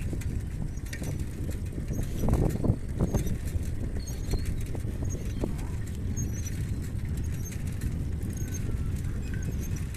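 Steady low rumble of a bicycle ride on a paved road, the sound picked up by a handheld phone while riding, with light rattles and clicks and a slightly louder rush about two seconds in.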